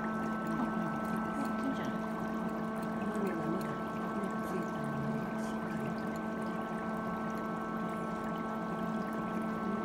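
Steady machine hum made of several constant tones, running unchanged throughout.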